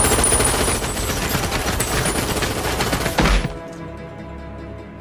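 Sustained rapid automatic fire from a submachine gun, stopping a little past three seconds in with a heavy low thud. Music plays underneath.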